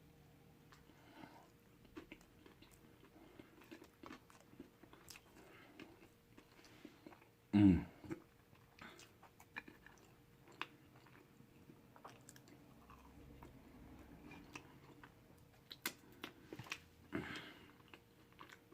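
Close-miked chewing of a cheeseburger: steady wet mouth clicks and soft crunches, under a faint steady hum. A brief, loud, low vocal sound with falling pitch comes about eight seconds in.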